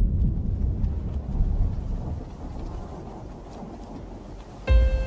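Low, thunder-like rumble that fades away over the first three seconds. About four and a half seconds in, a deep boom hits and a held musical note begins as the song's music starts.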